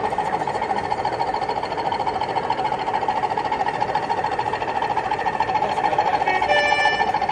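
Model diesel locomotive hauling hopper wagons along the layout's track: a steady, fast rattling hum, with a brief pitched tone near the end.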